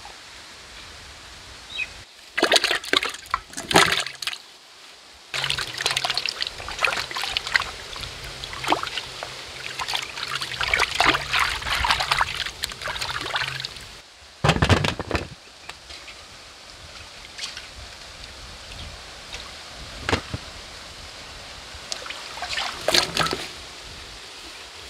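Water splashing and trickling, heard in several separate noisy stretches with abrupt breaks between them.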